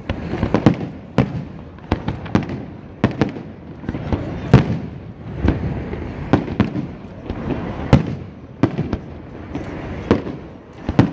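Aerial fireworks shells bursting in an irregular series of sharp bangs, about one or two a second, with rumbling echo between them. The loudest bang comes about four and a half seconds in.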